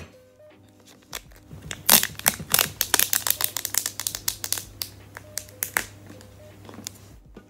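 Fingernails tapping and scratching quickly on an iPhone 12 box and its wrapping, a fast run of light clicks. It starts about a second in, is densest over the next couple of seconds, then thins out near the end.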